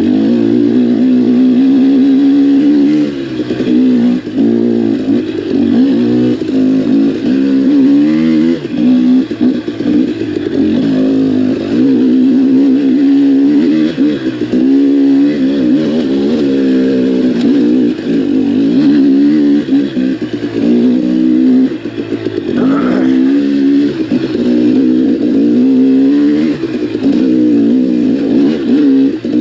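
KTM XC-W dirt bike engine running under load on a trail, its pitch rising and falling as the throttle is worked on and off, with a few short dips when the throttle closes, about three seconds in and again a little past twenty seconds.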